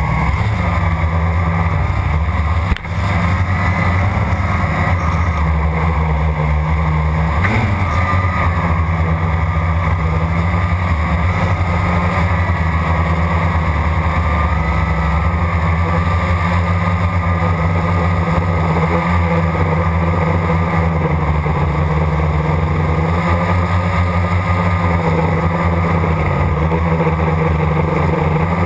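Blade 350 QX quadcopter's motors and propellers whirring steadily at flight power, heard close-up from the camera mounted on the drone, with a brief rise in pitch about seven seconds in.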